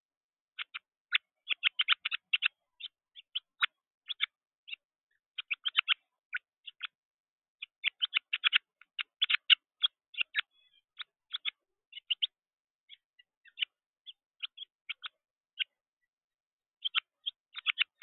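Short, sharp bird chirps repeated in quick clusters, several a second with brief pauses: begging-type calls of a juvenile songbird fluttering its wings.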